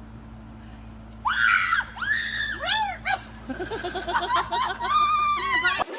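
High-pitched screaming: a string of short cries rising and falling in pitch begins about a second in, then gives way to a longer held scream near the end.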